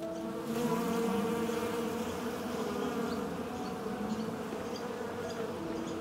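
Bees buzzing in a swarm: a steady, wavering drone.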